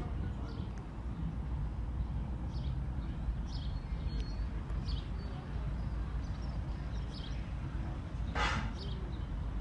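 Outdoor ambience: a steady low rumble with scattered short high chirps from birds, and one louder animal call about eight and a half seconds in.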